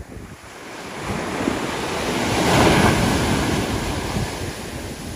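Ocean wave breaking on the beach: a rushing surf that swells to a peak about two and a half seconds in, then eases as the foam washes up the sand. Wind buffets the microphone throughout.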